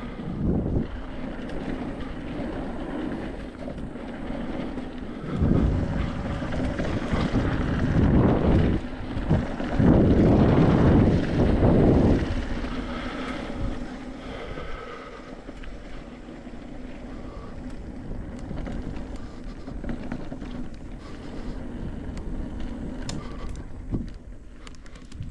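Wind buffeting the microphone of a mountain biker's camera during a descent, as a continuous low rumble with loud gusts about five seconds in and again from about eight to twelve seconds in.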